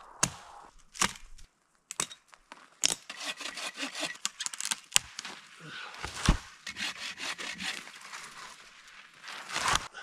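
Hand saw rasping through a small spruce trunk in quick strokes, with sharp cracks and snaps of the wood and branches as the tree gives way, one loud crack about six seconds in and a crash through branches near the end.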